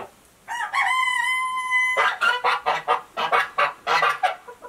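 A hen's loud cackle: one long, drawn-out call that rises and holds steady, then a rapid string of clucks, about five a second.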